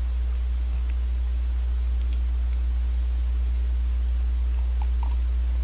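Steady low electrical hum with an even hiss, unchanging throughout, with a few faint small ticks over it.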